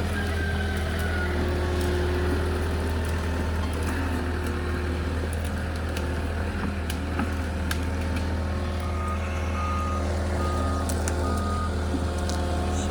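John Deere 325G compact track loader's diesel engine running steadily under work. Near the end its reverse alarm beeps four times, evenly spaced, as the machine backs up.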